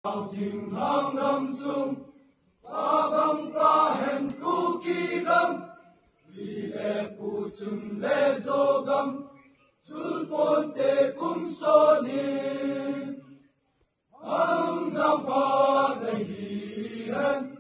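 A group of voices chanting in unison in five phrases of a few seconds each, with short pauses between them.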